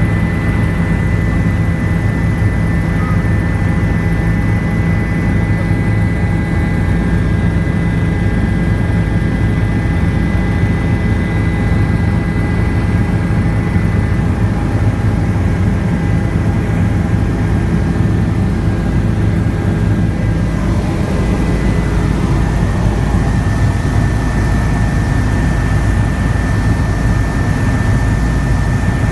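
Helicopter turbine engine and rotor heard from inside the cabin in flight: a loud, steady drone with a thin, steady high whine over it.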